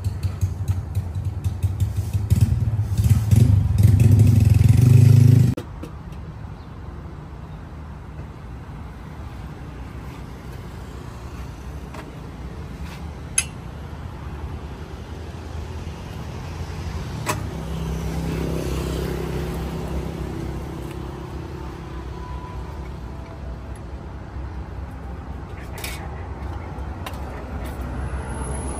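Electric coffee grinder running, its pitch creeping up, then cut off sharply about five and a half seconds in. After that, a steady low hum of road traffic with a few light clinks of cups and utensils.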